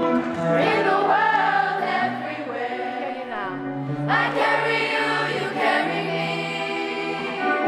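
Children's choir singing together, accompanied by an electric guitar holding steady low chords that change every couple of seconds.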